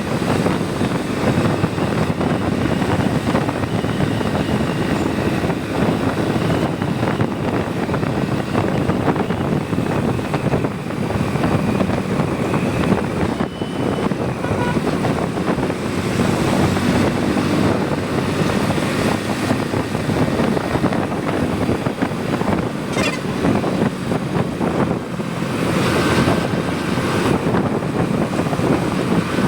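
Motorcycle riding along a road: the engine running steadily under a constant rush of road and wind noise.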